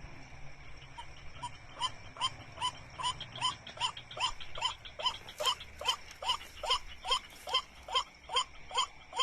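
White-breasted waterhen (ruak-ruak) calling: a short falling note repeated about two and a half times a second, starting faintly about a second in and growing steadily louder.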